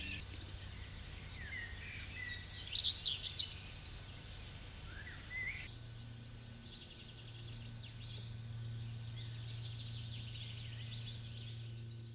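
Songbirds singing and chirping in woodland, with short calls and rising whistles. About six seconds in the ambience changes abruptly to denser, high trilling song. A low steady hum runs underneath.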